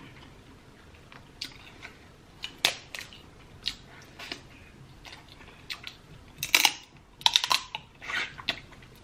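Close-miked eating sounds of someone sucking meat from snow crab legs: scattered short wet smacks and clicks, with a louder run of them about six and a half to seven and a half seconds in.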